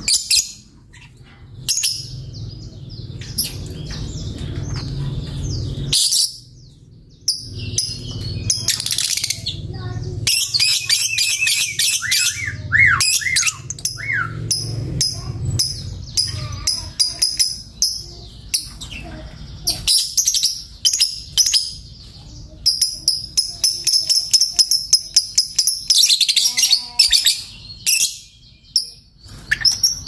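Caged lovebird singing: high-pitched chirps and long runs of rapid chattering notes, with short pauses between bouts.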